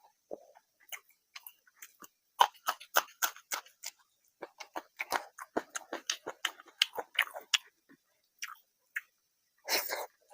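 Close-miked chewing of a rice-and-curry meal: rapid mouth clicks and smacks, thickest through the middle. Near the end comes a short rushing sound.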